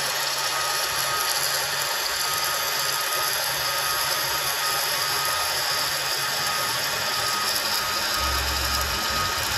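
Gas-shielded (dual shield) flux-cored arc welding with Lincoln 71M wire: the arc crackles steadily as a weld bead is run into thick steel truck-frame plate.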